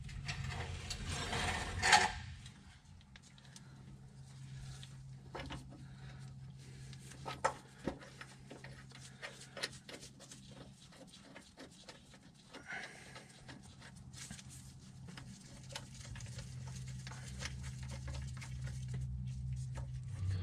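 Scattered light clicks and rustling of gloved hands handling a rear main seal installer on an engine's crankshaft, with a louder rustle about two seconds in. A steady low hum runs underneath.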